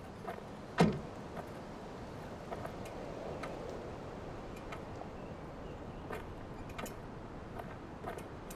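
Pickup truck door latch clunking once, sharply, about a second in. Then scattered light clicks and rattles as a mountain bike is lifted out of the truck bed, over a steady outdoor hiss.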